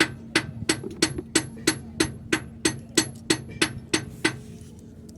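Hammer striking metal in a steady series, about three blows a second with a short metallic ring, stopping a little after four seconds in. A steady low hum runs underneath.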